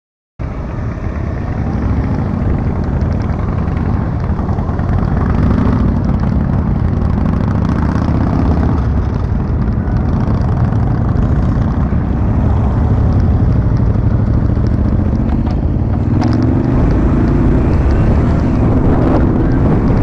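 Motorcycle engines running as a group of motorcycles pulls away and rides off, with wind buffeting the microphone. Near the end one engine rises in pitch as it accelerates.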